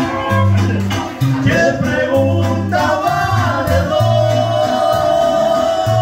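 Live band playing Latin American dance music: a bass line alternates between low notes under a melody that holds one long note with vibrato through the second half.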